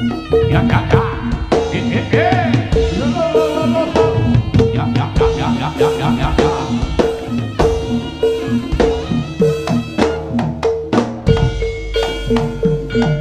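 Live jaranan sentherewe music: fast hand-drum strokes over gamelan-style percussion, with a short pitched metallic note repeating about twice a second.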